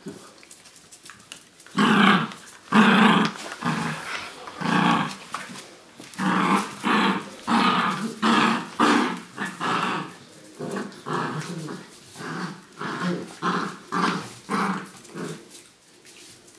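Dogs growling in play while tugging a toy between them in a tug-of-war. The growls come in a quick run of short bursts, about two a second, beginning about two seconds in.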